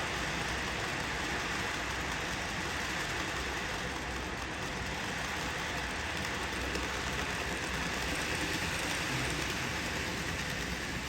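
N gauge model trains running on a layout: a steady whirring rolling noise of small wheels and motors on the track.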